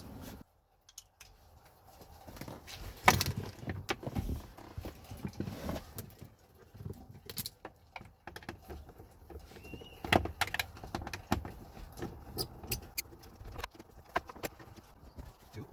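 Hand-tool work on 7 mm screws: scattered, irregular clicks, clinks and knocks, with the sharpest knocks about three seconds in and again about ten seconds in.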